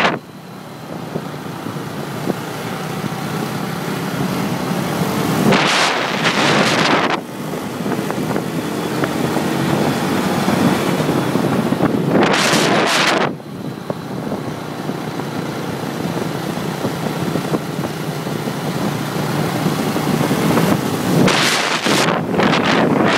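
Wind rushing over a microphone while riding along a road beside a motor scooter, with steady engine and tyre noise underneath; louder gusts of wind come about six seconds in, again about twelve seconds in, and near the end.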